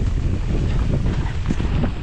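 Wind buffeting the microphone of a mountain bike rider at speed, a steady low rumble with scattered clicks and rattles from the bike and tyres on the trail.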